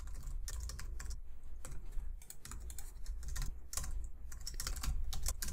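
Typing on a computer keyboard: a quick, irregular run of key clicks, over a low steady hum.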